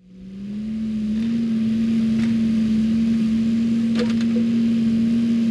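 Bobcat mini excavator's engine running at a steady pitch, fading in over the first second, with a few sharp metallic clinks.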